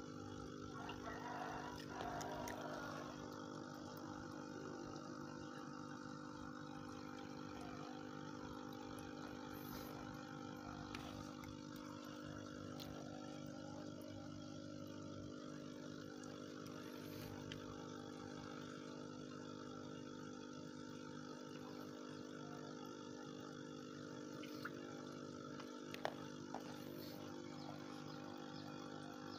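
Aquarium air pump running with a steady electric hum. A brief louder rustle comes about two seconds in, and a couple of light sharp taps near the end.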